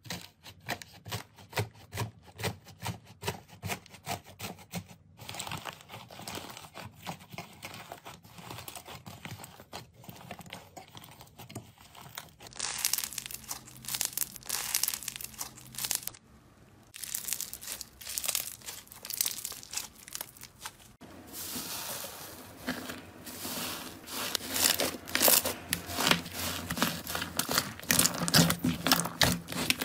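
Slime and a foam sponge being pressed, squeezed and kneaded by hand: dense crackling and crinkling pops, the texture changing abruptly several times as one clip gives way to the next, and growing louder and denser in the last third.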